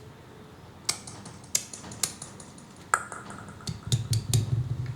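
A series of sharp, irregularly spaced clicks and knocks, like small hard objects being handled, with a quicker cluster near the end over a faint low hum.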